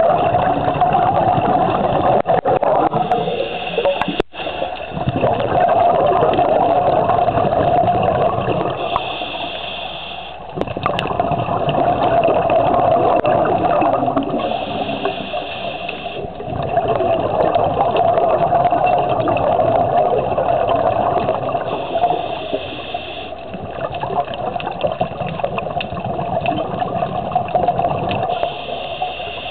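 Underwater sound of scuba breathing: a steady gurgling rush of exhaled bubbles, with a higher hiss coming back for a second or so about every six seconds.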